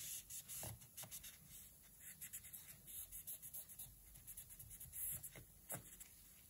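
Faint rubbing of a microfiber cloth wiping a milled titanium coin holder, with a few brief scuffs of the cloth over the metal.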